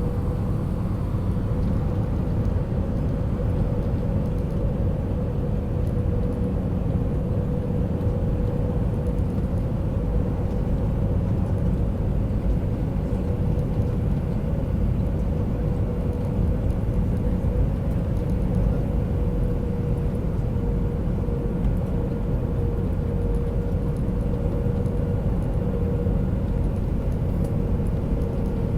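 Steady airliner cabin noise: a low rumble of engines and rushing air with a steady hum underneath.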